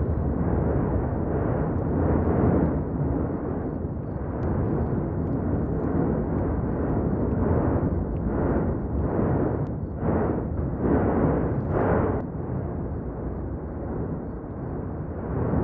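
Erupting volcanic vent on La Palma, roaring in a steady low rumble. Near the middle comes a run of quick surges, about two a second.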